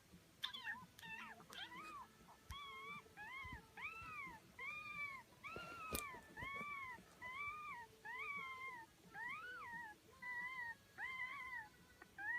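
Cat meowing repeatedly: a few short chirps first, then a steady run of about a dozen short arched meows, a little under one a second. There is a sharp click about halfway through.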